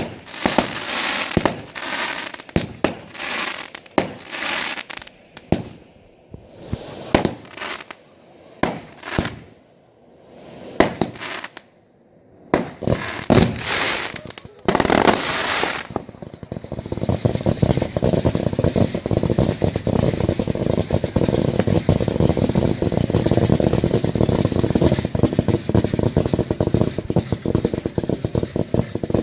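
Fireworks display: aerial shells going off one after another, about one loud bang a second, each trailing away. About halfway in they give way to a dense, rapid crackling of many small reports that keeps going.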